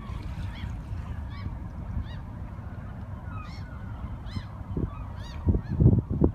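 Geese honking repeatedly, about one or two calls a second, over a steady low rumble. Near the end come a few loud, low buffets of wind on the microphone.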